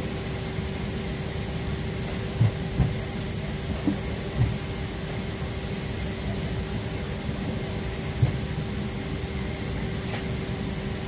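Steady hiss and hum of a parked Boeing 767-400ER's cabin air conditioning, with one steady tone, heard from inside the cabin. A handful of brief knocks, mostly in the first half.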